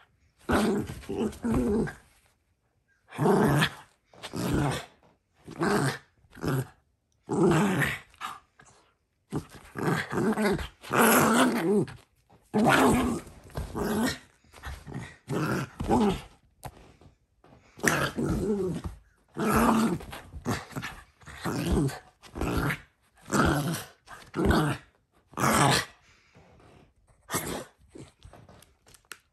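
Small dog play-growling in a long run of separate growls, each about a second long with short gaps between them, trailing off to a few faint ones near the end.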